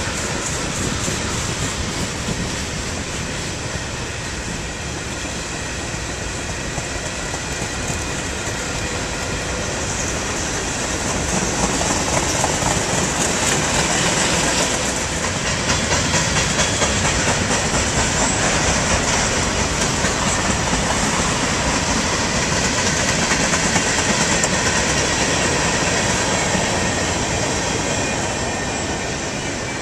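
Freight train cars rolling past at close range: a steady rumble of steel wheels on rail with clickety-clack over the rail joints, getting louder about ten seconds in.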